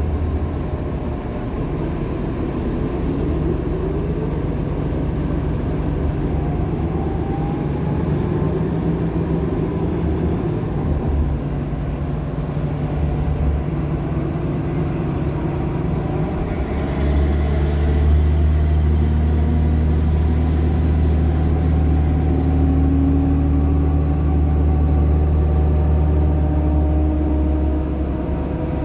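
Nova Bus LFS Artic hybrid bus (Cummins ISL9 diesel with Allison H50 EP hybrid drive) running under way. The engine drone grows louder about 17 seconds in, followed by a slowly rising tone as it gathers speed. A faint, thin, high-pitched squeal drifts in pitch above it.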